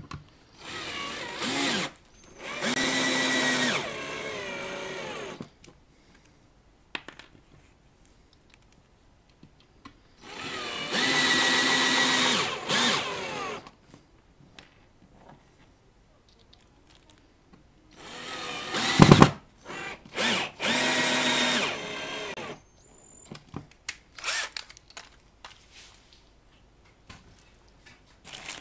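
Power screwdriver driving screws into a speaker cabinet, running in several short bursts of one to three seconds with pauses between. A sharp knock stands out about two-thirds of the way through.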